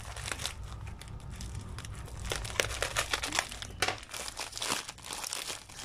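A thin plastic packaging bag crinkling in irregular crackles as hands press, fold and lift it.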